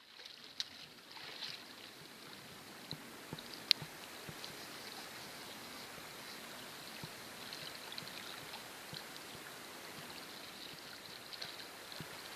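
Shallow stream water running and rippling steadily close by, with a light babbling flicker. A single sharp click stands out about four seconds in.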